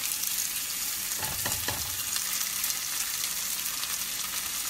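Panko-breaded meat cutlets sizzling steadily in hot olive oil in a skillet, just laid into the pan. A short clatter sounds a little over a second in.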